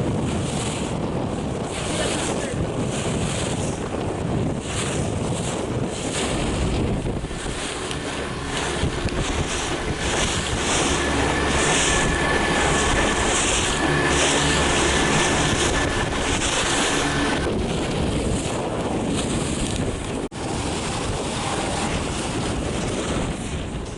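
Wind buffeting the microphone and water rushing past the hull of a racing sailboat under way, a steady loud rush.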